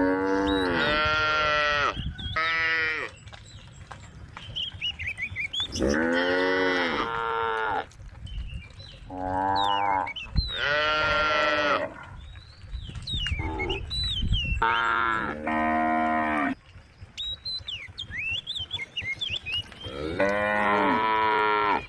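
Cows mooing: long, loud moos in five bouts, each two to three seconds long, with short pauses between them.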